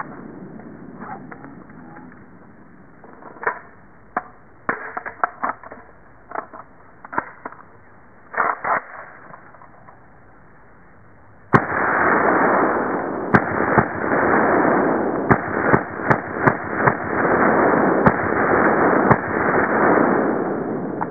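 Sharp metallic clicks and clacks from an M&M M10 7.62 AK rifle being handled during reload drills. About halfway through, a loud rush of dense, steady noise starts abruptly, with many sharp clicks over it.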